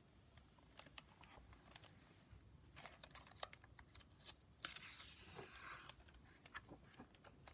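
Faint handling of a hardcover picture book: scattered soft clicks and taps, with a short paper rustle a little under halfway and a longer one about two-thirds in.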